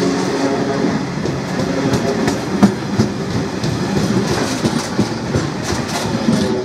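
Yellow engineers' box wagons rolling past on a freight train, their wheels clattering over the rail joints with scattered sharp clicks and one louder bang about two and a half seconds in. The last wagon goes by near the end.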